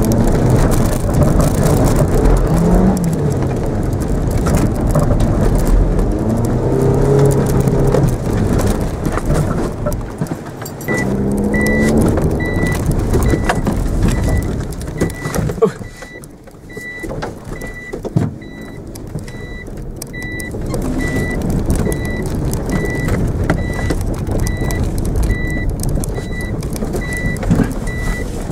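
A Mitsubishi Mirage's engine heard from inside the cabin, revving up and down hard while the car is driven round a grass course. It drops much quieter for a few seconds about two-thirds of the way through, then picks up again. From about eleven seconds in, a short high electronic beep repeats steadily, a little under twice a second.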